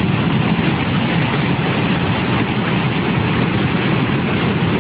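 Muddy flash-flood water rushing past in a steady, unbroken wash of noise.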